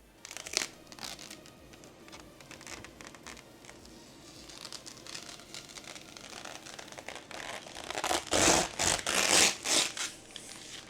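Rustling, scraping and crinkling handling noise with scattered clicks, growing into several louder rustles about eight seconds in.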